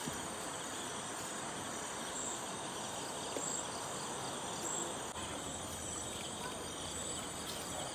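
Steady night chorus of crickets and other insects.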